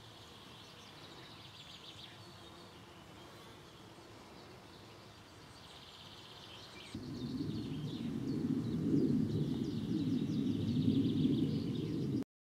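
Faint outdoor ambience with high bird chirps. About seven seconds in, a much louder low rumbling noise sets in and continues until the sound cuts off abruptly near the end.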